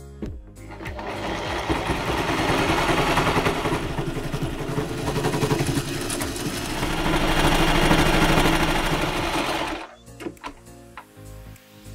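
Singer electric sewing machine stitching lace trim onto a velvet edge, running at a fast stitch rate for about nine seconds and then stopping abruptly near the end.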